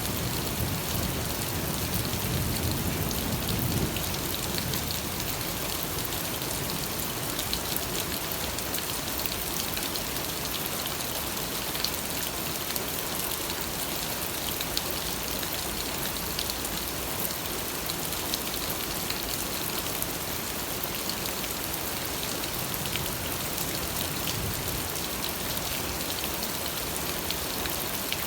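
Steady rain falling, a dense even hiss with many fine drop ticks. A low rumble fades away in the first few seconds.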